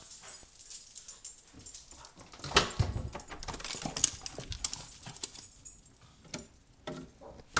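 Two dogs, a Petit Basset Griffon Vendéen and a pug, moving and scuffling about: scattered clicks and bumps, with a louder thump about two and a half seconds in.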